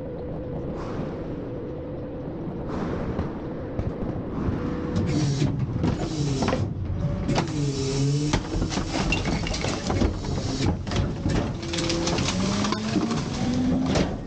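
Garbage truck engine and hydraulics running at the rear hopper of a McNeilus rear-end loader, with a whine that glides up and down as the cart tipper lifts and dumps a residential garbage cart. From about five seconds in it turns louder, with knocks and clattering as the cart swings up and trash falls into the hopper, and the whine rises near the end.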